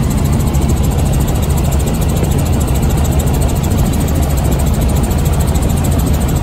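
Light tour helicopter in flight, heard from inside the cabin: a loud, steady drone of engine and rotor with a strong low hum.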